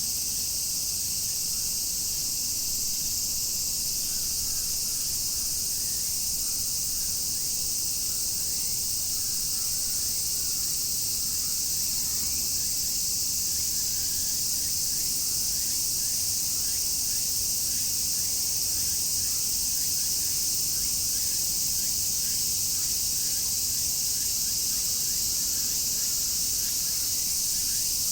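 A dense chorus of cicadas (semi-shigure) shrilling steadily without a break, a high-pitched buzzing hiss, with faint scattered short chirps underneath.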